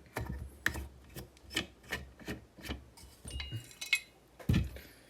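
Small metal clicks and scraping, about three a second, from a Kaba 8 lock being worked with small tools, with one louder knock near the end.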